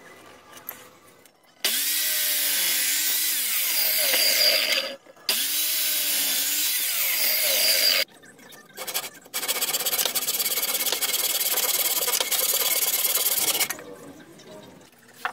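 A power tool running on wood in three bursts of about three to four seconds each, each starting and stopping abruptly, with short pauses between them.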